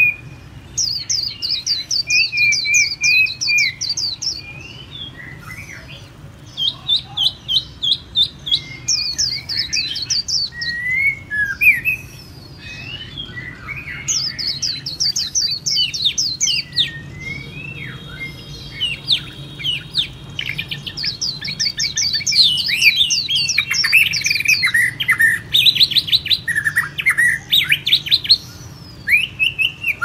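Several songbirds singing and calling: repeated runs of rapid, high, downward-sweeping trill notes mixed with shorter whistled phrases, coming in bursts with short gaps between them.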